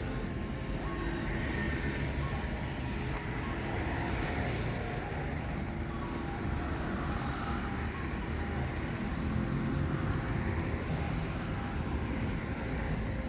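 Steady outdoor engine noise of passing motor traffic, with no speech.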